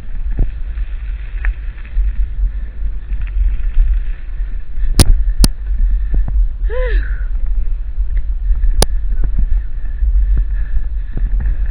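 Mountain bike riding on a dirt trail: heavy wind rumble on the camera microphone, with a few sharp clicks and knocks from the bike over bumps.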